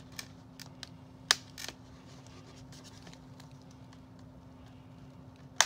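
Sharp plastic clicks and light crinkling as doll clothes and accessories are pulled free of a clear plastic packaging tray, with two louder clicks, about a second in and just before the end. A faint steady hum runs underneath.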